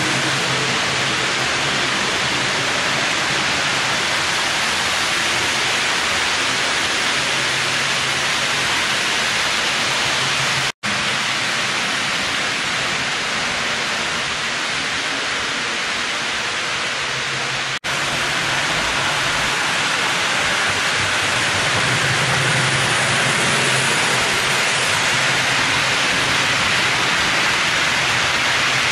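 Steady rushing hiss with a faint low hum underneath, from HO-scale model trains running on a layout, heard through a camcorder microphone. The sound drops out for an instant twice, at cuts in the recording.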